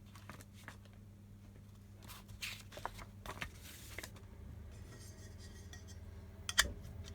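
Metal parts and tools of a 3D-printer kit being handled during assembly: scattered clinks and rattles that get busier after about two seconds, with one sharper knock near the end. A steady low hum runs underneath.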